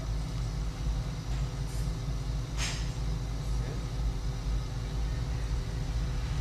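Steady low machine hum with a short hiss about two and a half seconds in.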